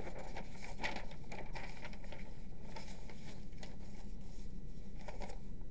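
Steady low electrical hum with scattered faint rustles and clicks, which stop near the end.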